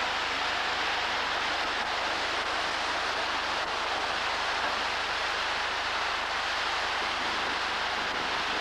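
Steady rushing of seawater and shingle slurry, pumped ashore from a dredger, pouring out across the beach.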